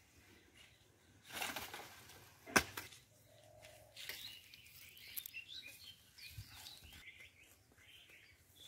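A swish of rustling dry banana leaves, then one sharp snap about two and a half seconds in, as a banana flower is cut down from the plant with a long bamboo pole. Faint bird chirps follow.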